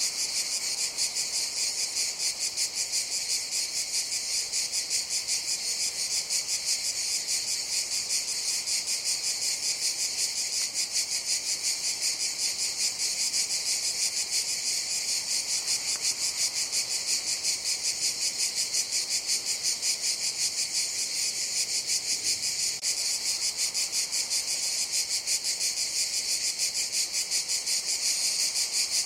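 Cicadas singing: a steady, high-pitched buzzing chorus with a fast, even pulse that holds unchanged throughout.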